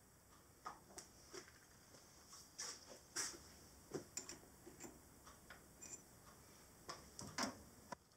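A dozen or more light metallic clicks and taps at irregular intervals: a small spanner and nut being handled and tightened to clamp a cast crank web onto a threaded mandrel in a lathe's 3-jaw chuck.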